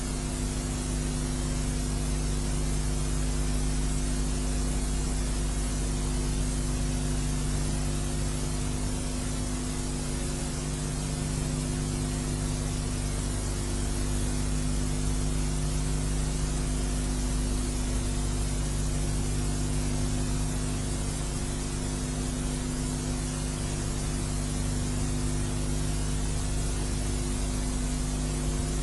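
Steady hiss with a low, even hum beneath it, unchanging throughout.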